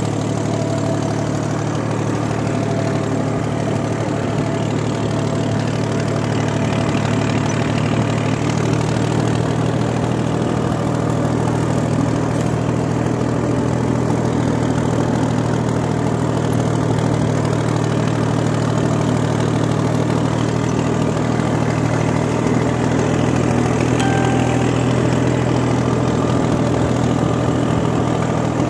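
Tractor engine running steadily as it pulls a disc plough, which is cutting and turning the soil; an even, unbroken drone.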